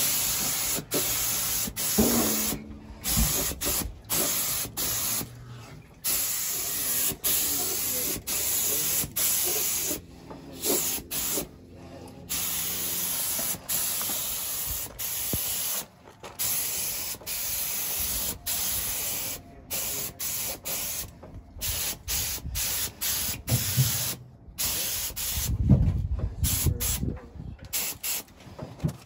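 Compressed-air gravity-feed spray gun spraying a black coat, hissing in repeated bursts as the trigger is pulled and released, with short gaps between passes. A few low knocks come near the end.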